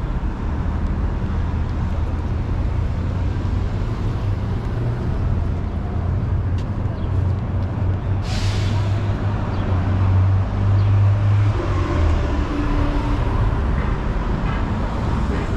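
Street traffic with a heavy vehicle's engine running low and steady, and a short sharp hiss of air-brake release about eight seconds in.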